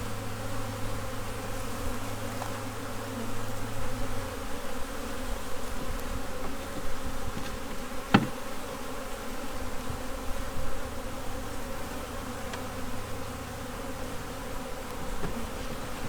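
Honey bees buzzing steadily around an open hive as its frames are inspected. A single sharp click comes a little past eight seconds in.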